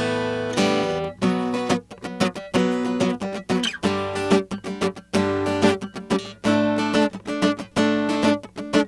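Tagima California acoustic guitar played through its built-in pickup into a mixing desk: strummed and picked chords ringing out, with brief breaks between phrases.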